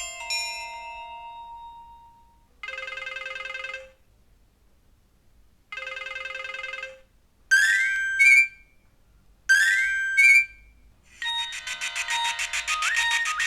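Nokia 1616 built-in tones: a clock-alert chime dies away, then the 'Desk phone' ring sounds twice as short trilled rings. Next comes the 'Message 2' alert, a quick rising chirp played twice, and about 11 seconds in the busier 'Message 3' alert tune begins.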